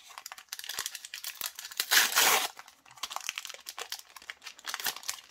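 Panini trading-card pack wrapper being torn open and crinkled by hand, with the loudest rip about two seconds in.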